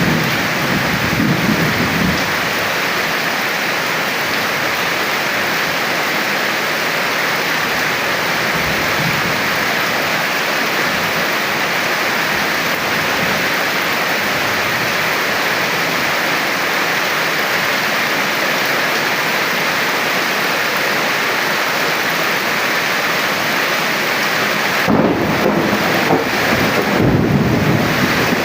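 Steady heavy rain hissing, with low rolls of thunder rumbling in at the start and again a few seconds before the end.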